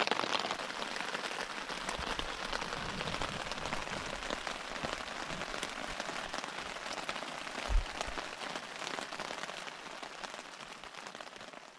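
Steady rain pattering on tent fabric, with one soft thump about eight seconds in; the patter fades a little near the end.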